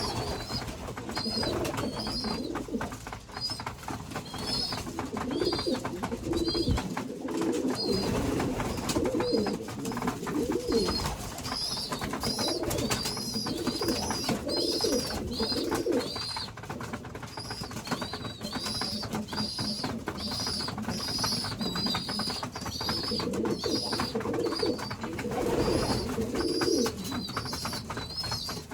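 Young pigeons (squeakers) peeping in short high chirps, about two a second, begging their mothers for food, while adult pigeons coo low in bursts.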